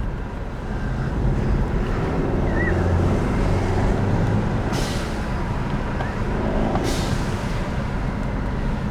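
Turbocharged four-cylinder of a 2012 Mercedes-Benz C250 running under acceleration with road noise, and two short hissing whooshes about five and seven seconds in: the Go Fast Bits aftermarket diverter (blow-off) valve venting boost as the throttle closes.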